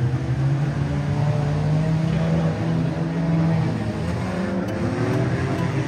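Car engine running, its pitch rising and falling as it revs.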